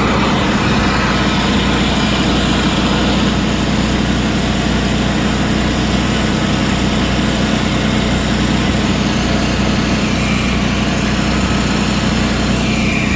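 Three generators running together, a loud, steady engine drone with a low hum.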